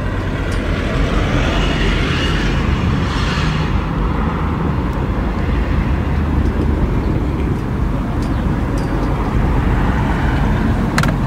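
Steady low rumble of a running vehicle, with a swell of hiss that rises and fades about two to four seconds in and a few sharp clicks near the end.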